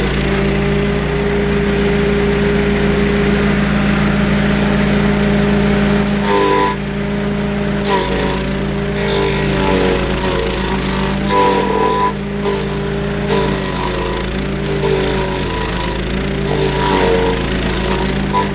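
Stump grinder engine running at high speed, with a rough grinding hiss over it. After about six seconds its note starts dipping and wavering again and again as the cutting wheel takes load against the stump.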